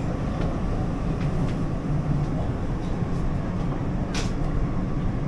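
Steady low rumble of a metro train heard from inside the passenger car, with faint scattered clicks and a brief hiss about four seconds in.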